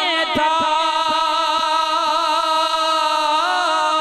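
A man's voice singing one long, ornamented held note of a devotional chant into a microphone, wavering in pitch. Soft low thumps come about twice a second underneath.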